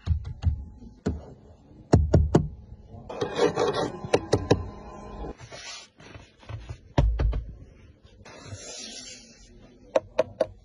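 A hand tapping and pressing on a Cadillac XT6's padded leather door trim and front seat: a run of sharp taps and dull knocks, with rubbing and rustling of the upholstery between them.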